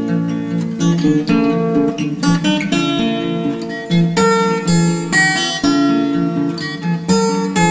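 Background music on acoustic guitar, a plucked tune of quick successive notes.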